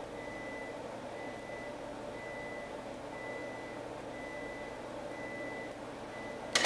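A high electronic beep sounding in pulses of about a second with short gaps, over faint room noise; a sharp click right at the end.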